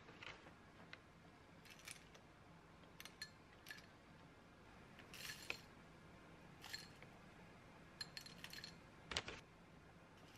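Dry granola sprinkled into a bowl of yogurt: faint, scattered crisp rattles and clinks, the loudest about nine seconds in.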